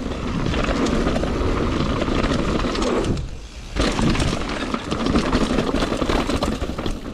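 Mountain bike riding down a dirt trail: tyres rolling over dirt and rocks, with the bike rattling. The noise dips briefly a little after three seconds in.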